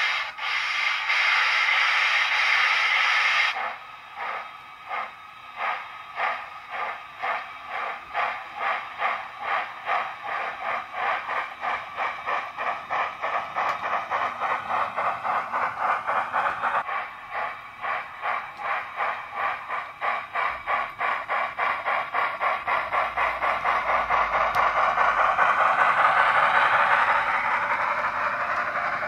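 Digital sound from a Loksound 5 decoder with the Wheeltappers sound file, playing through the speaker of an OO-gauge LMS Beyer-Garratt steam locomotive model. A steady hiss stops after about three and a half seconds. Exhaust chuffs then start slowly, about one a second, and quicken steadily as the locomotive accelerates, running together into a fast, louder beat near the end.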